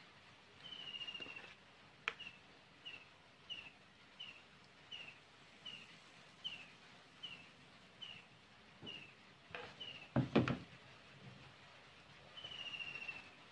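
A small bird chirping over and over, one short high falling note about every 0.7 s, with a longer rapid trill near the start and again near the end. A sharp knock comes about 2 s in and a louder clatter about 10 s in, the loudest sound here.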